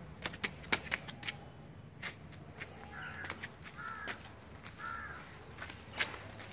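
Footsteps on a concrete floor: a dog's paws and a person walking, giving scattered sharp clicks and taps. About halfway through come three short calls, about a second apart.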